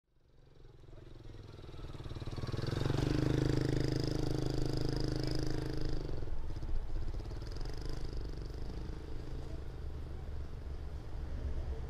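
A vehicle engine running at a steady pitch, fading in over the first couple of seconds and dropping away suddenly about six seconds in, leaving a low steady rumble.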